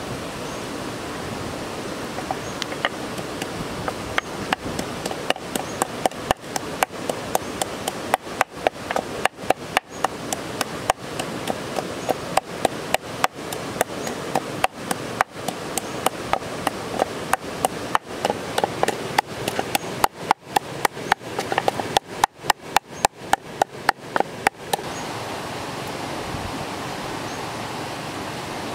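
Wooden pestle pounding food in a wooden mortar: a steady run of knocks, about two to three a second, starting a few seconds in and stopping near the end, over a steady rush of running water.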